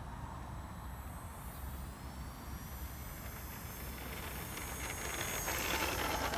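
Electric ducted fan of an RC jet (50 mm EDF) whining, its thin high tones rising in pitch as it spools up, and growing louder near the end as the plane taxis closer. A steady low wind rumble on the microphone runs underneath.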